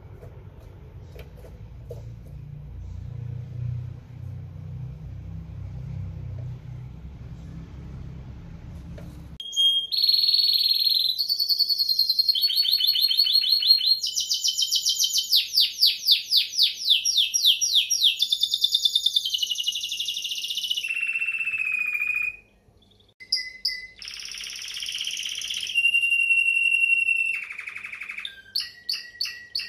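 Timbrado canary singing: a low rumble gives way, about a third of the way in, to loud song in short phrases of rapid trills, fast repeated notes and held whistled tones. The song breaks off briefly past the middle and then resumes.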